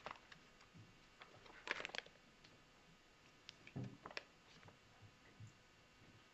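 Quiet room tone with scattered faint clicks and rustles, a small cluster of them about two seconds in and again around four seconds.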